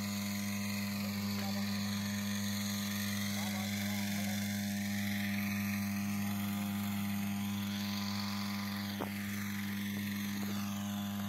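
A steady low mechanical hum with even overtones, unchanging throughout, over faint distant voices; a single short click about nine seconds in.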